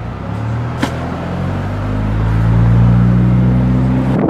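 A low, steady engine drone at an even pitch, growing louder over the first couple of seconds, then holding and cutting off abruptly near the end. A single sharp click sounds about a second in.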